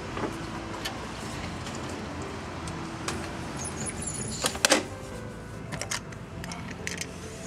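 An aluminium sliding window being drawn shut along its track, rumbling steadily, with a couple of sharp knocks close together about halfway through as it meets the frame.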